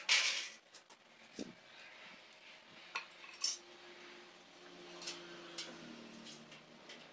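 Small metal hand tools clinking, tapping and scraping against metal pieces on a concrete floor: a scrape at the start, then a few scattered sharp clicks.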